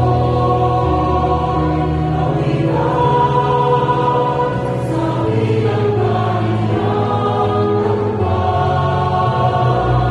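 Cantors singing a Tagalog responsorial psalm in slow, held phrases over sustained instrumental accompaniment.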